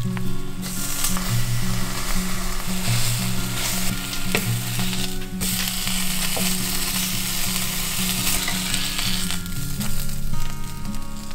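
A hand-grabbed pancake with egg, and a slice of bacon, sizzling steadily in hot oil in a cast iron skillet, with a few short clicks. Soft background music runs underneath.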